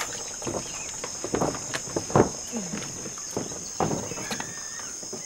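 Insects chirring steadily at a high pitch, with scattered knocks and shuffles on wooden floorboards and faint murmuring voices.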